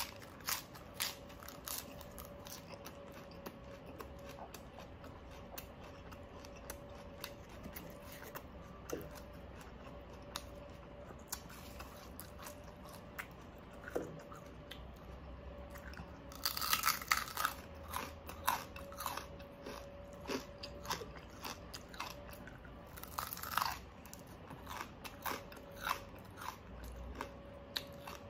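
Close-up chewing and crunching of crispy pata (deep-fried pork knuckle) and fresh vegetables: a run of short, crisp crunches, with two louder bursts of crunching past the middle. A faint steady hum runs underneath.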